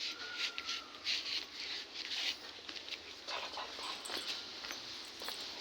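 A dog whining: one thin, high, slightly falling whine about a second long near the start, over faint hissy background noise.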